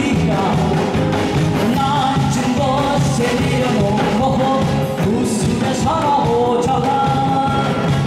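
A man singing a song in a strong, clear voice, with long held notes, over loud backing music with a steady beat.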